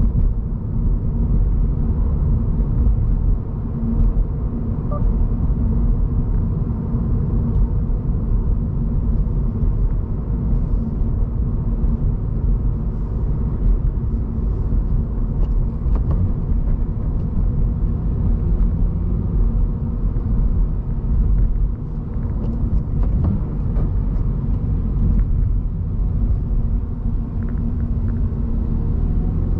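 Cabin sound of a 2023 Subaru BRZ being driven: the 2.4-litre flat-four engine's steady low drone mixed with tyre and road noise, heard from inside the car.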